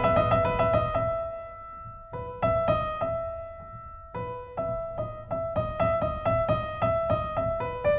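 Background piano music: single notes struck in a quick repeating pattern that thins out and nearly stops about two seconds in, then picks up again after about four seconds.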